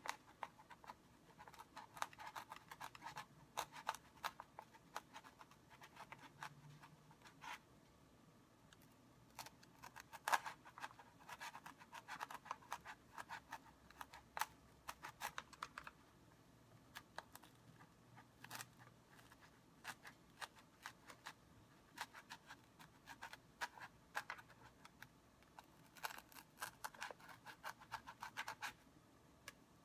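Razor-blade knife sawing up and down through a block of layered foam: a faint, irregular run of short scratchy strokes and clicks, in clusters with brief pauses.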